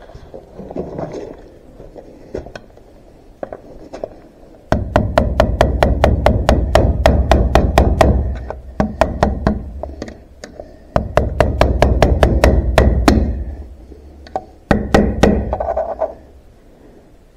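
Three runs of rapid hammer taps on a punch driving into the steel shift lever assembly of a tractor transmission cover, about five sharp metallic strikes a second.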